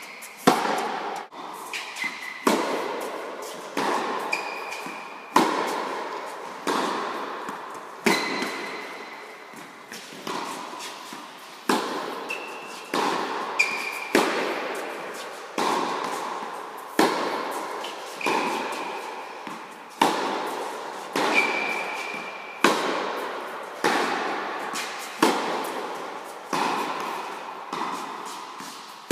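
Tennis balls struck by rackets in a steady back-and-forth rally, roughly one sharp hit every second and a half, each with a long echo in an indoor tennis hall.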